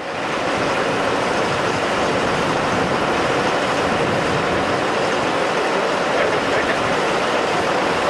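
Claas Jaguar 950 forage harvester running steadily, a dense, even machine noise with no change in pitch.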